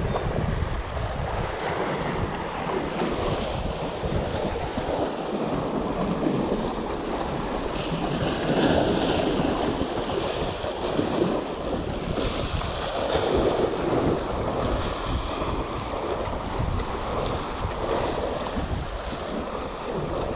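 Small sea waves washing and splashing over the boulders of a rock breakwater, swelling every few seconds, with wind rumbling on the microphone.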